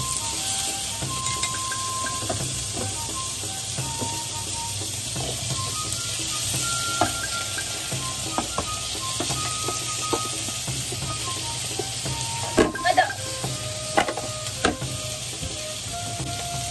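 Sliced pork and vegetables sizzling as they stir-fry in a frying pan, turned with wooden chopsticks, with carrot and onion tipped in partway through. A few sharp knocks near the end are the loudest sounds.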